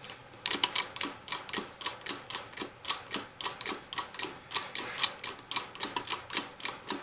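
Hydraulic jack of a hand-built pollen press being pumped by its handle: a quick run of sharp metallic clicks and clacks, several a second, as the press is brought up to pressure.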